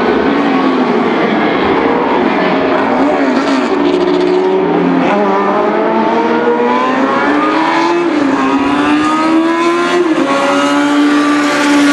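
Classic endurance racing cars running at speed: several engines overlap, their pitch climbing and dropping back again and again as they rev up and lift off.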